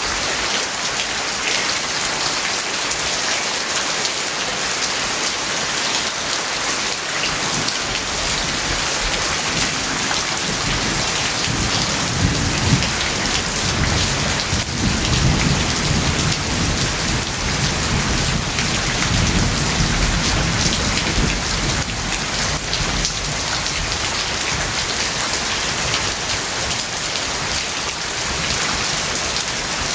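Steady rain falling on a house yard, a dense even hiss. A long low rumble of thunder builds about a quarter of the way in, is strongest near the middle, and fades away about two-thirds through.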